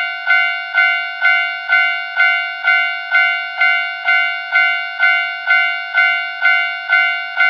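Japanese railroad crossing warning bell ringing steadily, an even clang about twice a second, each strike fading before the next.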